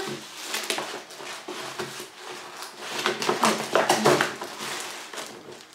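Brown paper mailer bag rustling and crackling as it is torn open and rummaged through, louder about three to four seconds in as a plastic-bagged item is pulled out of it.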